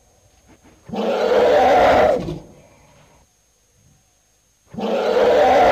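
African elephants calling: two loud, rough calls, each lasting a little over a second, the second coming about four seconds after the first.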